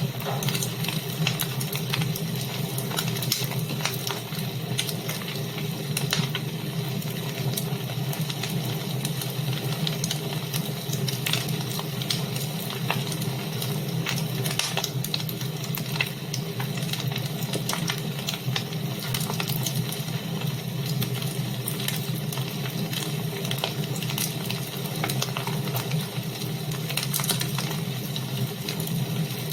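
Wood fire burning in a fireplace: a steady hiss with frequent small crackles and pops.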